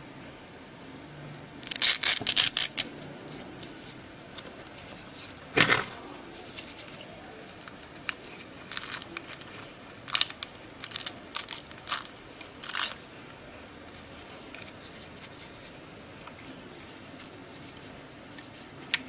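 Handling noise from a toy morpher: its orange wrist strap crinkles and its plastic body clicks as the strap is worked into place. A dense burst of sharp crackles comes about two seconds in, another near six seconds, and scattered clicks and rustles follow for several seconds after that.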